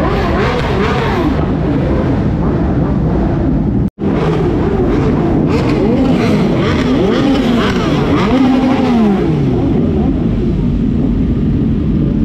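Many superbike engines idling and revving together, their overlapping rises and falls in pitch blending into one loud, steady din. The sound cuts out for an instant about four seconds in.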